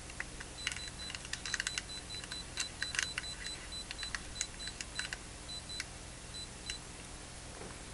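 Faint, irregular clicking of the rotary knob on a Miniware electronic load as it is turned to raise the current draw to 2 amps, the clicks thickest in the first three seconds. A faint low steady hum and an on-off high thin tone run underneath.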